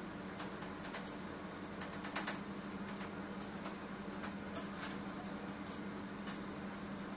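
Steady low hum from a machine or fan in the room, with scattered light clicks and taps.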